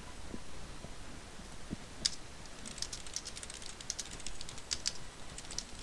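Typing on a computer keyboard: a single click about two seconds in, then a quick, uneven run of key clicks.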